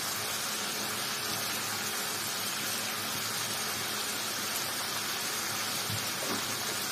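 Chicken pieces frying in a kadhai, a steady even sizzling hiss with no stirring.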